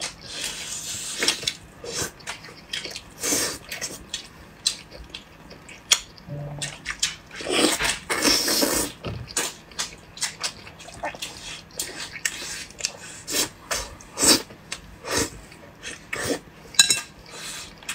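Close-miked eating sounds of soft, fatty braised pork belly: wet chewing, lip smacks and slurps in irregular clicks, with a few longer slurping stretches, the longest a little past the middle.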